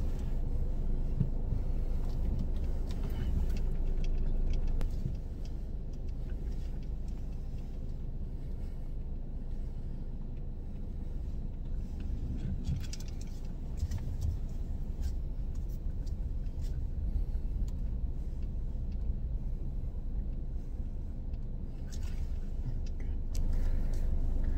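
Car engine running with a steady low rumble, heard from inside the cabin, with a few scattered clicks and knocks of handling. The rumble drops a little in level about five seconds in.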